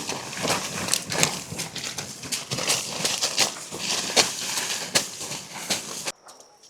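Irregular clattering knocks over a dense rustling, crackling noise, which cut off abruptly near the end.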